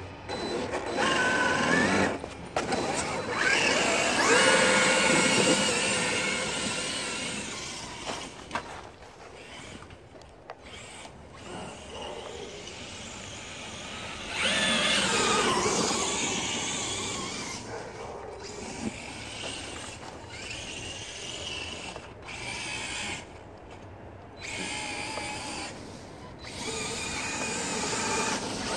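Electric RC monster truck (Traxxas E-Maxx) driving in snow: its motors and gears whine in bursts of a few seconds, the pitch rising as it accelerates and falling as it slows. The loudest bursts are about four to six seconds in and around fifteen seconds.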